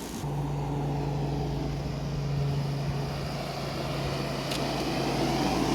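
Hampton Bay 10,000 BTU window air conditioner running, heard from its outdoor side: a steady low compressor hum, with the rushing air of the condenser fan growing louder near the end. The owner suspects its condenser coil is plugged and the airflow weak.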